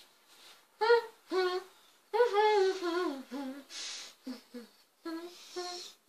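Two girls humming and making closed-mouth 'mm' sounds with their mouths full of water, a few short hums and one longer wavering hum that falls in pitch, with a short breathy hiss about halfway through.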